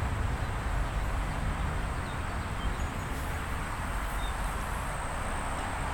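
Steady outdoor background noise: a low rumble under a light hiss, with a few faint high chirps.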